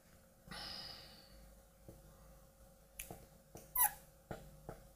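Felt-tip marker tapping and squeaking on a glass lightboard as a few short strokes are written, a quick series of light ticks in the second half. A short, soft, breath-like hiss comes about half a second in.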